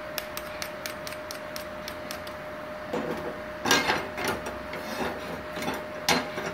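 Aluminium plates clanking and scraping on a workbench as they are handled: a few light ticks, then from about three seconds in a run of separate clanks, two of them louder. Under it runs the steady whine of the switched-on inverter welding machine.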